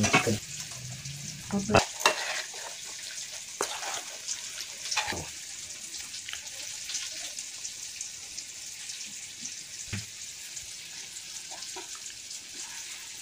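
A steel spoon scooping and scraping cooked chicken filling in a steel bowl and tapping it onto chapatis: a few scattered clinks and scrapes over a steady hiss.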